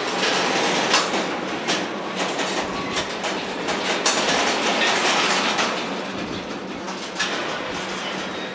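Union Pacific manifest freight train rolling past, with a dense, steady rumble from the cars and scattered sharp clicks as wheels pass over rail joints.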